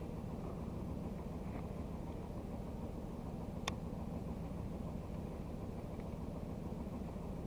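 Boat engine running steadily with a low rumble, and a single sharp click about halfway through.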